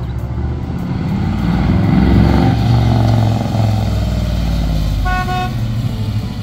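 A 1972 Chevrolet Nova's 383 V8 driving past, its exhaust note swelling to a peak about two seconds in and then easing off as the car moves away. A short car-horn toot sounds about five seconds in.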